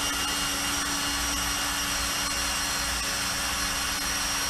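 Ridgid 18-volt cordless drill driving out a long screw that runs through the plastic into metal, its motor running at a steady speed with a constant hum and high whine.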